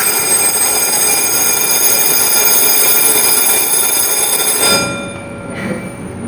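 A 4-inch electric fire alarm bell ringing continuously, set off by breaking the glass of a manual break-glass call point, which releases its switch. It starts suddenly and stops about four and a half seconds in.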